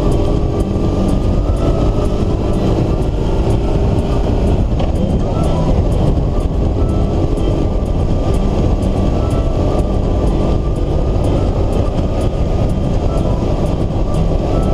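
Motorcycle riding through rain: steady engine and wind noise, with many small ticks of raindrops hitting the windscreen close to the microphone.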